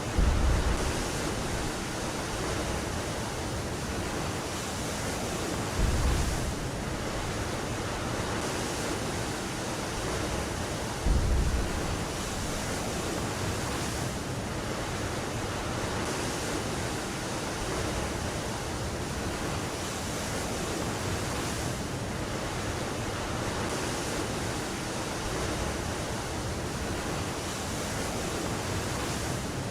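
Steady rushing wind-and-sea noise, with three low thuds about five seconds apart in the first half.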